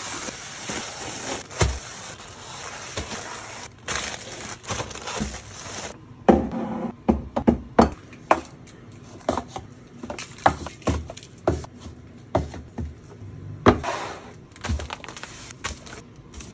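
Packaged groceries being set down on pantry shelves: plastic snack bags crinkling and rustling, with a run of short knocks and taps as packets, cups and bags are placed on the shelf.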